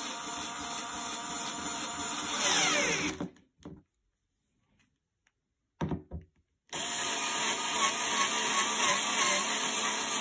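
Cordless power screwdriver driving a screw into a bed frame panel. The motor runs steadily, then about two and a half seconds in it gets louder and drops in pitch as the screw tightens, and stops. After a pause of about three seconds with a few brief clicks, it starts again on the next screw.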